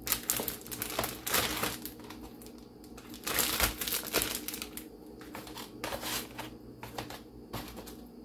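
Plastic Ziploc bag crinkling as hands handle it and press its zipper seal closed, in irregular crackles, busiest about a second in and again around three to four seconds in.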